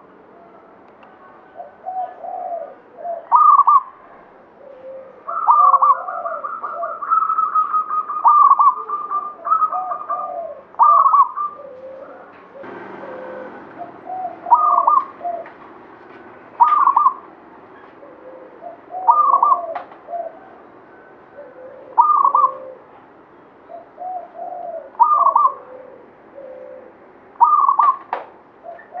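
Zebra dove (perkutut) singing its cooing song: a phrase every two to three seconds, each opening on a higher note and dropping into lower rolling coos. One longer phrase near the start runs a fast stutter of repeated notes.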